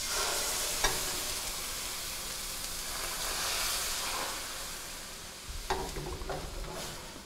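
Cream poured from a carton into a hot stainless skillet of softened onions and sage, hissing and sizzling as it hits the pan. The sizzle dies down gradually over several seconds as the cream takes the heat, the start of a cream sauce.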